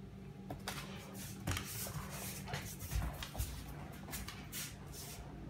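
Claws of a young Presa Canario and a Doberman puppy clicking and scrabbling irregularly on a hard floor as they play, with a few dull thumps about three seconds in.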